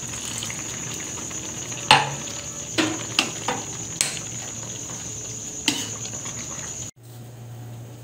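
A metal ladle knocking against an aluminium pan of simmering soup as it is stirred: about six sharp clinks over a steady background hiss, cut off abruptly near the end.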